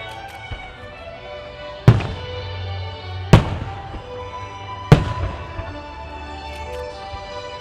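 Aerial firework shells bursting with three loud bangs about a second and a half apart, with a few fainter cracks, over music played through the venue's loudspeakers.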